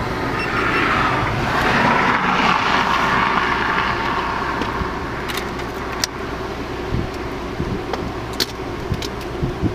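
A motor vehicle passing: its noise swells over the first couple of seconds and fades away by about five seconds in, over a steady low engine hum. A few light clicks follow.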